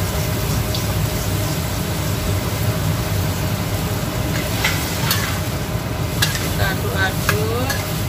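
Utensil stirring young papaya pieces in a pot of seasoned water over a steady low rumble. In the second half come a run of sharp clicks and scrapes of the utensil against the pot.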